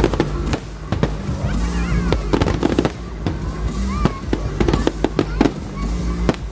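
Aerial fireworks shells bursting in quick succession, a dense run of sharp bangs and crackles, with music playing underneath.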